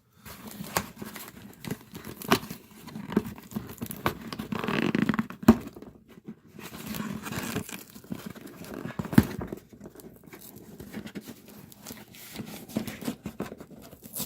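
A cardboard shipping package being handled and opened: tearing and crinkling of packaging with scattered knocks and scrapes, busiest about five seconds in.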